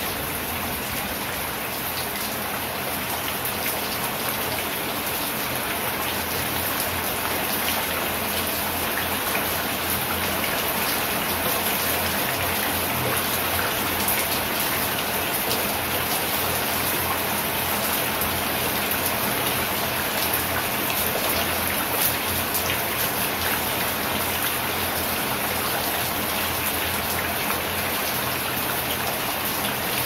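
Steady rain: a dense hiss of falling water with many small, quick drop ticks, holding even throughout.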